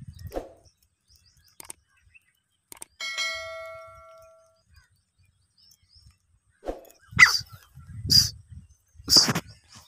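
A caged female grey francolin (desi teetar) calling: loud, short calls about once a second from about seven seconds in. Earlier, a single metallic ding rings out and fades over about a second and a half.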